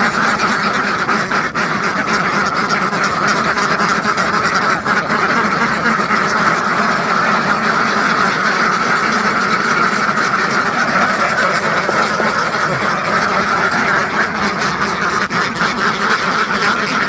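A large flock of farmed domestic ducks quacking all at once, a dense, unbroken din of overlapping calls.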